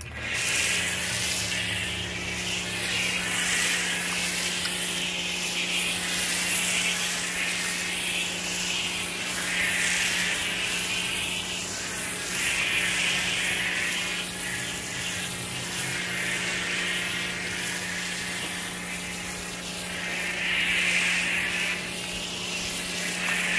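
Pressure washer running with a steady hum while its foam cannon sprays alkaline soap foam onto an RV wall. The spray is a constant hiss that swells and fades every couple of seconds as the lance sweeps. It starts a moment in, when the trigger is pulled.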